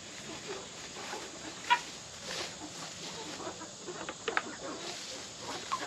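Young hens (pullets) clucking softly, with scattered short calls over a faint background hiss.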